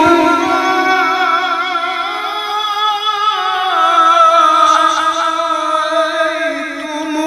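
A male Quran reciter (qari) holds one long, ornamented note in melodic tilawah style, sung on a single breath without a break. The note is amplified through a handheld microphone, wavers in pitch, and steps down partway through.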